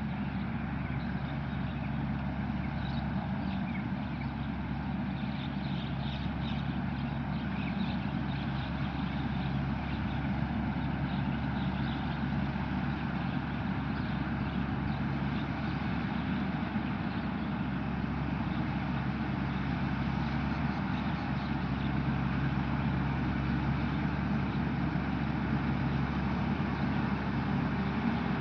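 Isuzu 6HK1 six-cylinder diesel engine of a Tamco Onew Pro S9000 combine harvester running steadily at constant speed, growing slightly louder in the last several seconds.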